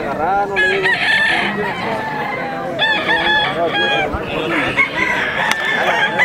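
Many roosters crowing over one another, with some clucking mixed in.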